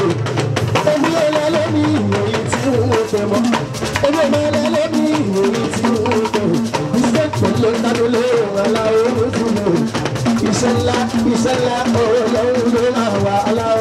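Live fuji music: a male lead vocalist singing through a microphone over a band's drums and shaker-type percussion.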